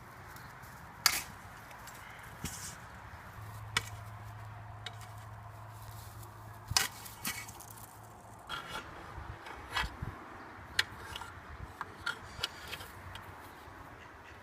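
Irregular sharp taps and knocks, a dozen or so, the loudest about a second in, over a faint low hum.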